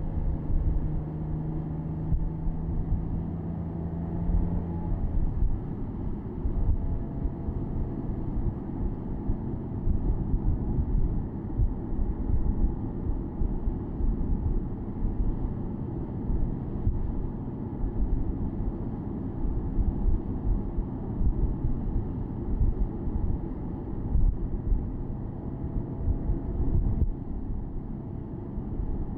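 Porsche Boxster S (987.2) flat-six running while driving with the top down: a continuous low rumble of engine, road and wind. A steady engine hum drops away about five seconds in.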